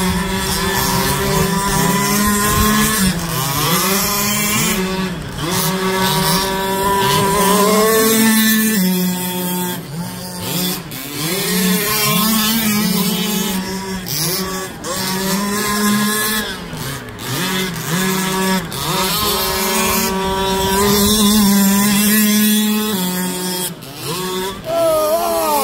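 Small two-stroke petrol engine of a 1/5-scale gas RC car driving hard on a dirt track. It holds a high, steady rev for stretches, then drops and climbs again over and over as the driver lifts off and gets back on the throttle.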